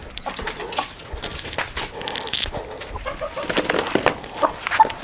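Desi rooster clucking and giving short squawks while held upside down by its legs and handled, louder near the end, over scuffing and rustling from the handling.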